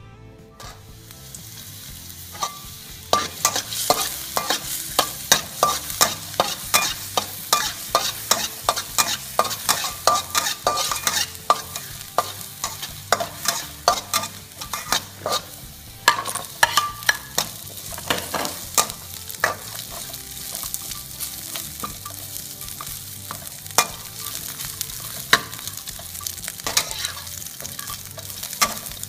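Chopped garlic and sliced pork sausage sizzling in hot oil in a steel wok, starting about half a second in. A metal spatula scrapes and clinks sharply against the wok as the food is stir-fried, often two or three strikes a second.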